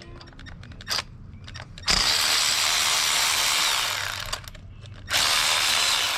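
A power tool runs in two bursts, about two seconds and then about a second and a half long, its whine dropping in pitch as each burst stops, as it spins bolts out of the engine. A few light tool clicks come before it.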